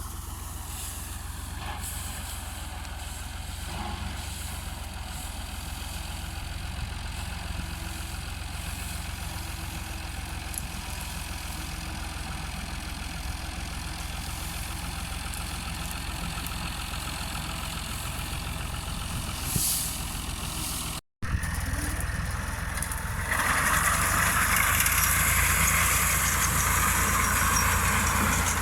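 Tractor engine running steadily as it powers a wheat thresher: an even low rumble with machine noise. About three quarters of the way through it drops out for an instant, then comes back louder with much more hiss.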